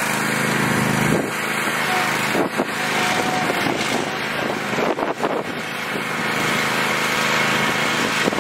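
Riding lawn tractor's small engine running steadily as it is driven at a trailer's loading ramps. A few knocks come a couple of seconds in and again about five seconds in as the tractor jolts against the ramps.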